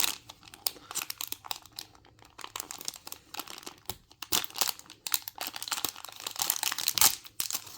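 Crinkling of a blind-bag wrapper being handled and torn open by hand: irregular crackles throughout, with a louder crackle near the end.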